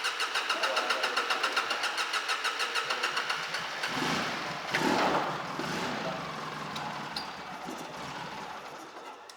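2004 Polaris Sportsman 600 twin ATV engine being cranked by its electric starter with a fast, even pulsing, then catching about four seconds in and running for a few seconds.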